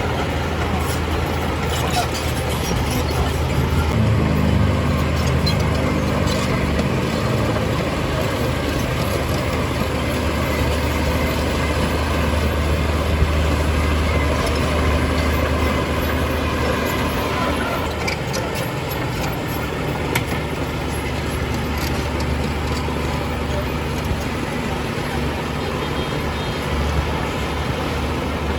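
Heavy diesel engine of earthmoving machinery running steadily as a low rumble, its pitch rising and falling about four seconds in, with a few sharp knocks.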